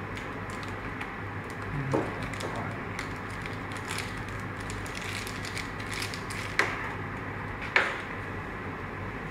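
A few light plastic clicks and taps from handling a graphics tablet, its pen and USB cable, the clearest about two seconds in and two more near the end, over a steady low hum.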